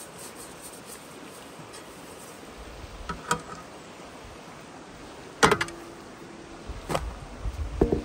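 Large aluminium trays knocking and clanking as they are handled. There are a few separate knocks; the loudest, about five and a half seconds in, leaves a brief metallic ring, and a quicker run of knocks comes near the end.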